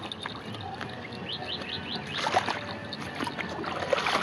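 Water lapping and slapping against the hull of a small home-made RC fishing boat, with scattered light knocks. A bird chirps four times in quick succession about a second and a half in.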